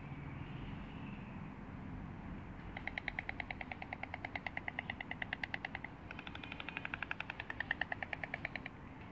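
White stork clattering its bill: two bouts of rapid rattling, about ten clacks a second, the first starting about three seconds in and the second after a short pause.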